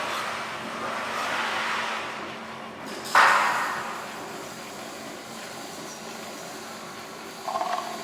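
GS-100 cable-stripping machine running with a steady motor hum as copper wire is fed through, with a loud sudden rasp about three seconds in that fades over about a second.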